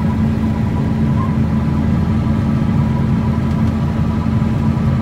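Cab noise of a John Deere 9420 four-wheel-drive tractor pulling an air seeder through the field: its six-cylinder diesel engine runs with a steady drone and an even hum.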